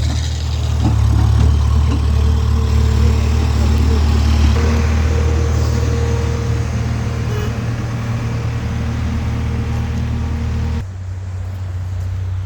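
Low, steady rumble of a running engine, with faint steady tones above it; it drops off abruptly near the end.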